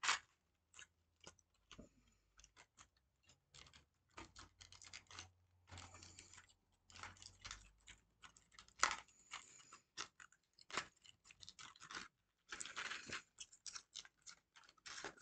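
Hands handling a small box of fake nails and its packaging: scattered soft clicks, taps and crinkling, a little busier about six, nine and thirteen seconds in.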